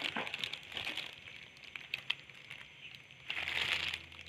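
Irregular crinkling and rustling with a few sharp little clicks, as the plastic sheet and the papery hornet's nest full of pupae are handled. It gets louder about three seconds in.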